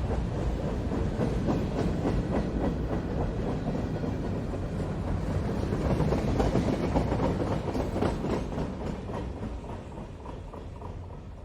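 Freight train rolling past, its wheels clicking over the rail joints in a dense, steady rumble. The sound fades away over the last few seconds.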